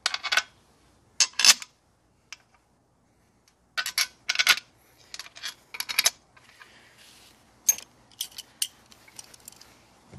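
Steel bolts clinking together in a hand and against the aluminium transmission case as they are picked out and set into the bolt holes. The clinks come in short rattling clusters, several times, with quiet gaps between them.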